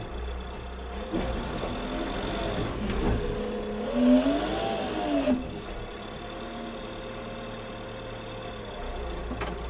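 Loader engine running under work while the manure grab takes its first load; about halfway through the revs climb and drop back again.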